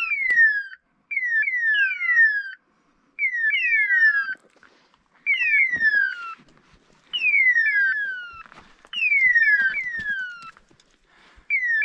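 Electronic beeper collar on a pointing dog sounding its point-mode hawk-scream call: falling screech tones in pairs and threes, repeating about every two seconds, the signal that the dog is standing on point.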